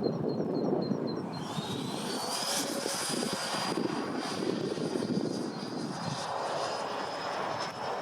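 Twin 80 mm electric ducted fans of a Freewing MiG-29 model jet, giving a high whine that rises in pitch about a second and a half in as the throttle goes up, then holds steady. A low rushing wind noise runs underneath.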